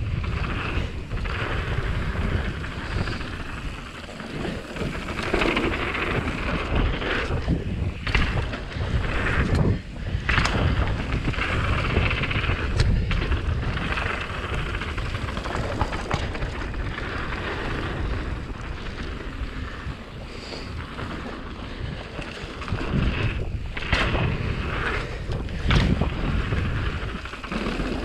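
YT Capra Core 1 MX full-suspension mountain bike descending a dirt singletrack at speed, heard from a handlebar-mounted action camera: steady wind buffeting on the microphone and tyre rumble over dirt, with the rattle of the bike and sharp knocks from bumps now and then.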